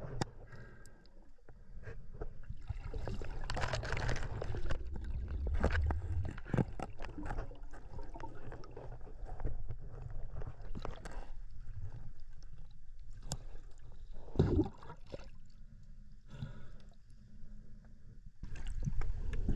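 Water sloshing and gurgling with irregular splashes and a few sharp knocks, over a steady low rumble.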